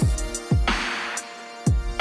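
Electronic outro music with a steady beat: deep kick-drum hits that drop in pitch, sharp snare-like hits between them, and held synth chords underneath.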